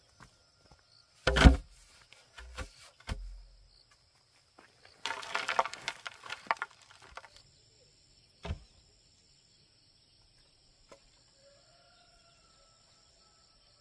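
A bamboo pole drops into a dug post hole with a heavy thud, followed by a couple of lighter knocks. Then stony soil crunches and scrapes as it is pushed and tamped around the pole's base, and a further thump follows. A steady high insect drone and faint bird calls sound underneath.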